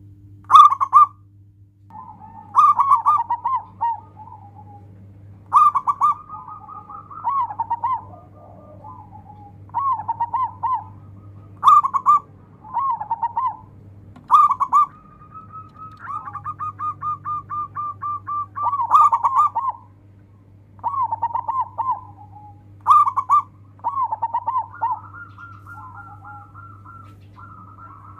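Zebra dove (local perkutut) singing: short cooing phrases of quick rolling notes, each opening with a sharp higher note, repeated about ten times with brief gaps. In the middle comes a longer run of fast, even pulses. A steady low hum runs underneath.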